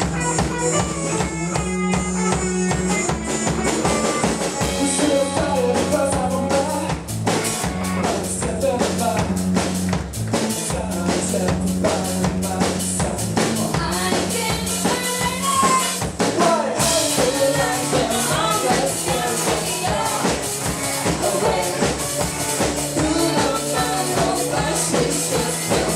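A live rock band playing: drum kit, bass and guitar with a singing voice, at a steady beat. The full band comes back in sharply about 17 seconds in.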